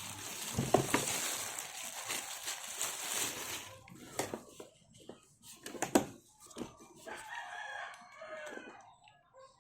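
A rooster crowing in the background, heard near the end. Before it, rustling and sharp clicks as the grinder and its packaging are handled.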